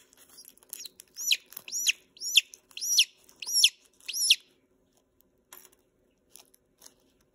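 Newly hatching chick peeping about six times in quick succession, each peep rising then falling in pitch, as it works its way out of the eggshell. A few faint clicks follow near the end.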